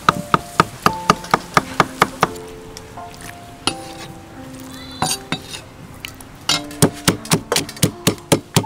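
Cleaver chopping on a wooden cutting board, about three strokes a second, stopping after about two seconds. After a pause with a few scattered knocks, a pestle pounds in a stone mortar, about four strikes a second. Soft background music runs underneath.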